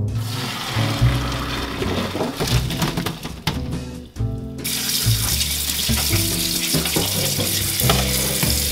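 Hot water poured from a pot splashing through a stainless steel mesh colander in a sink. About four and a half seconds in, a running tap starts, pouring steadily onto boiled beef chunks in the colander to rinse them.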